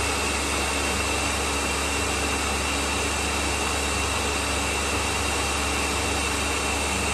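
Countertop blender running steadily, pureeing a green salsa of roasted chiles, cilantro, sour cream and cheese into a smooth liquid: an even motor hum with a thin high whine.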